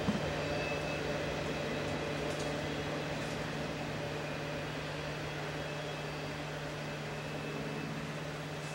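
Freight train rolling by with a steady rumble and hum that slowly fades.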